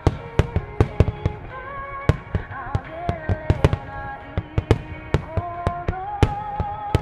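Large aerial firework shells bursting in quick succession, about three sharp booms a second, over music with a held, gliding melody.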